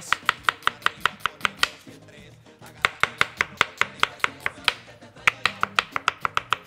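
Chef's knife slicing a red onion thin on a wooden cutting board: quick, even knife strokes hitting the board about six times a second, in three runs with short pauses between.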